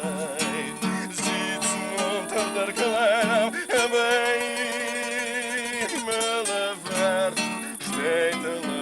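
Voice singing to acoustic guitar, the melody wavering with vibrato, with one long held note in the middle.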